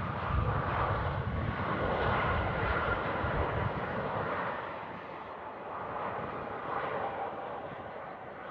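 Airliner engine noise as a plane passes close by: a broad rush with a steady whine and low rumble, easing off about halfway through.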